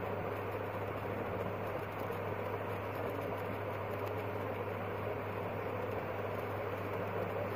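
Steady low hum with an even rushing noise, like a machine running in the room.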